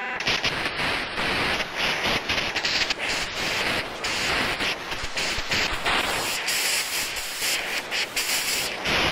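Electronic noise from a keyboard and synthesizer rig: a dense hiss of static that flickers and crackles without any clear pitch or beat.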